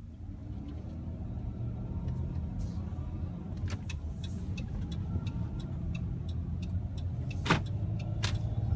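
Cabin noise inside a Chrysler Town & Country minivan under way: a low engine and road rumble that grows louder as the van picks up speed. A run of light ticks sounds in the middle, and two sharper knocks come near the end.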